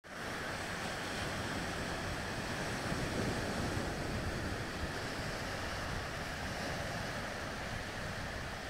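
Small sea waves breaking and washing up on a sandy shore, a steady surf wash, with some wind noise on the microphone.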